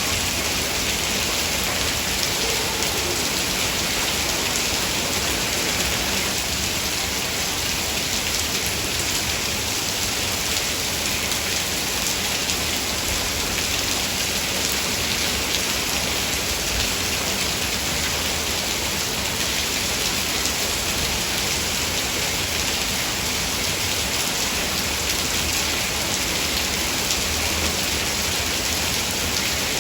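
Heavy rain falling without let-up, a dense, even hiss of drops.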